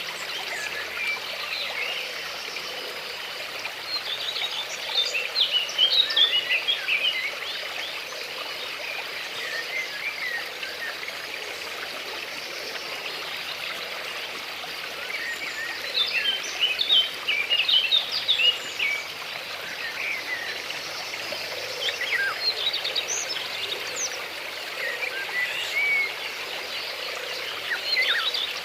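Steady flow of a stream with birds chirping over it in scattered bursts: a few seconds in, again past the middle, and near the end.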